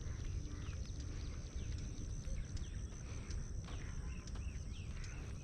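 Outdoor ambience: a steady low rumble of wind on the microphone, with many short high chirps of small birds and a steady high-pitched insect buzz.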